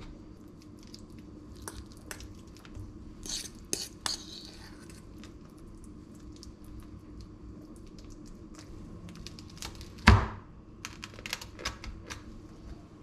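Utensil clinks and scrapes around a stainless-steel bowl as egg salad is spread into a baguette, with one loud metallic clank about ten seconds in. Near the end, a knife crunches through the crusty baguette.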